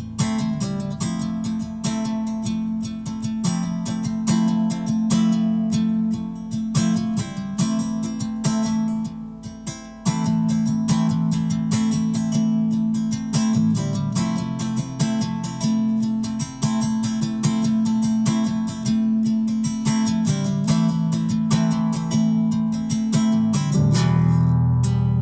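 Solo nylon-string acoustic guitar playing an instrumental piece: quick, repeated plucked notes over low notes that ring on. It dips briefly in loudness just before ten seconds in, and ends on a held, ringing chord.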